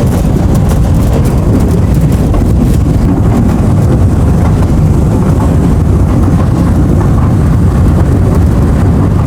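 A train running on its track: a loud, steady rumble that does not let up.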